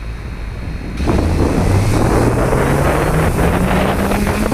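Quadcopter's DJI 2212 brushless motors with 9450 propellers spinning up for takeoff: about a second in the sound jumps louder and the motor hum rises steadily in pitch, with propeller wash buffeting the microphone.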